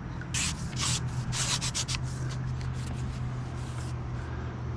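Rubbing and scratching noises in short bursts, several in the first four seconds, over a steady low hum.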